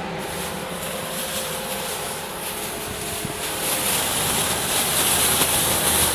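Faber chimney kitchen hood's extractor fan running, a steady rush of air at its rear exhaust outlet with a strong hiss, growing louder about four seconds in.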